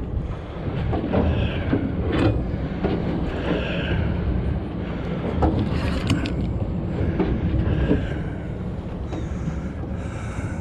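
Wind buffeting the microphone over the steady low rumble of the boat's engine, with scattered clicks from the conventional fishing reel as it is cranked against a hooked fish.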